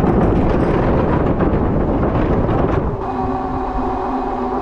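Electric bike riding at speed over a wooden plank bridge: wind rushes over the microphone and the tyres clatter over the boards. About three seconds in the clatter stops as the bike rolls onto pavement, and a steady whine from its electric motor comes through.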